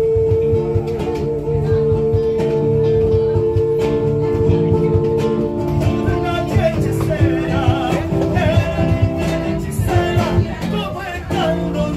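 Live singing to acoustic guitar. A long held note runs through the first five seconds or so, then the melody moves on over the strummed chords.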